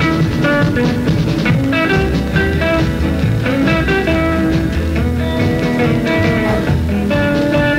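Background music: a guitar-led rock track with a steady beat.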